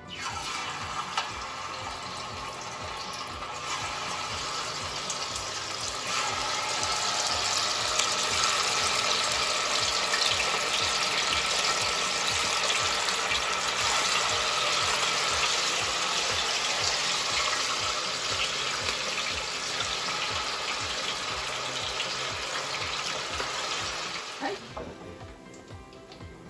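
Coated neki fish frying in hot oil in a deep pan: a steady sizzle that gets louder about six seconds in and dies away near the end.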